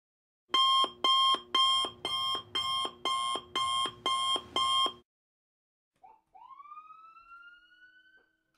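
Electronic alarm-clock-style beeping, about nine beeps at roughly two a second, stops about five seconds in. A rising siren-like wail follows about a second later.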